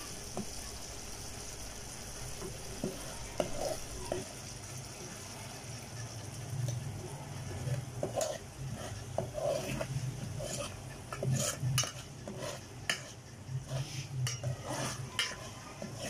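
Spoon stirring and scraping a frying ginger-garlic masala in a cooking pot, with a steady sizzle of oil under it. The masala is kept moving so it does not stick. The scrapes and clinks against the pot are irregular and come thicker in the second half.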